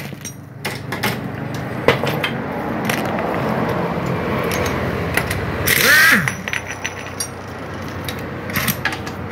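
A handheld impact wrench spins briefly about six seconds in, its whine falling away as it stops. Around it are scattered clinks and knocks of bolts and small metal parts being handled.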